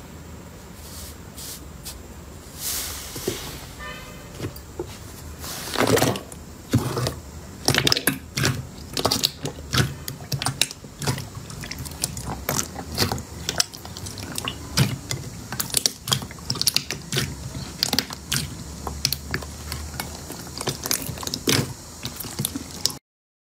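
Clear purple slime being squeezed and pulled by hand in a glass bowl, making a steady stream of wet clicks and pops, several a second and uneven in loudness, with a brief squeak a few seconds in.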